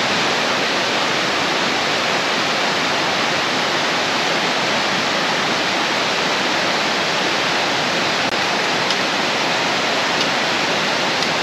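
Steady rushing of a mountain waterfall, an even wash of water noise.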